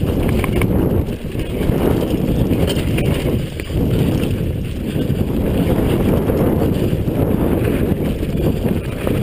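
Wind rumbling over an action camera's microphone as a downhill mountain bike runs fast on a dirt trail, mixed with tyre noise on the dirt and occasional light clicks from the bike.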